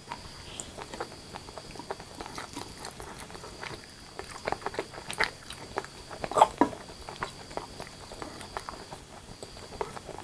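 Close-miked chewing and wet mouth clicks of someone eating chicken curry with rice: an irregular run of small clicks, with a louder cluster about six seconds in.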